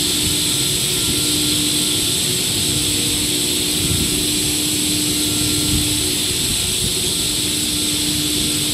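PE plastic pipe extrusion line running: a steady mechanical drone with a constant hum and a high whine.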